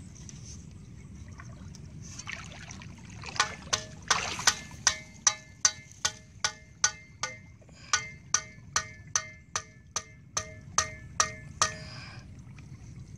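A metal tool struck over and over at a steady pace, about two or three sharp ringing knocks a second for some eight seconds, with a short pause partway and a stop shortly before the end. Just before the knocking starts, water sloshes.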